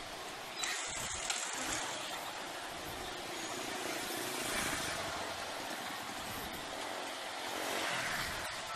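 Steady road and traffic noise: an even rushing hiss with no clear engine note standing out.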